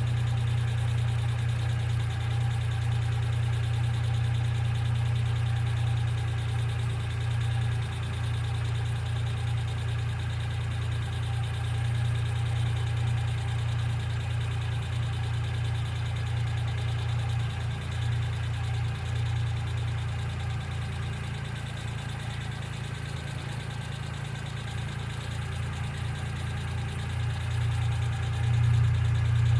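1995 Geo Metro engine idling steadily, with the ticking of its lifters.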